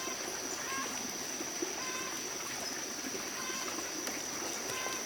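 Water running and trickling steadily, with a steady high-pitched whine throughout and a few short high calls.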